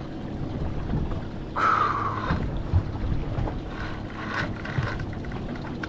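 Wind and choppy water around a small boat at sea, under a steady low hum. A brief falling squeal comes about a second and a half in, and fainter squeaks follow later.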